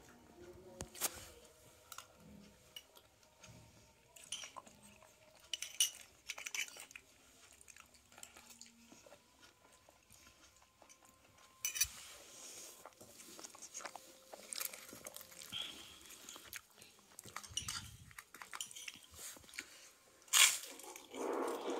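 Eating sounds: a metal spoon clinking against a glass bowl and dishes, with chewing and crunching in between, as scattered short clicks and a louder knock near the end.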